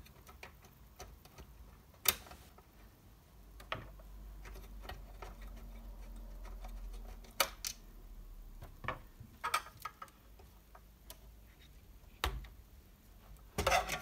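Scattered sharp clicks and light knocks, about eight spread out, from a graphics card and its power cables being handled and lifted off its mount in an open-frame PC case.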